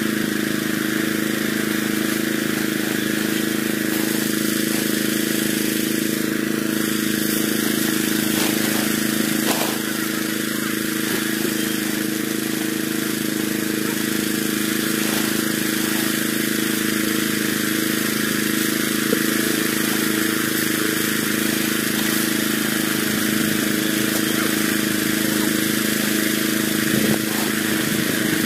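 Small single-cylinder gasoline engine running at a steady speed, an even drone that holds the same pitch throughout.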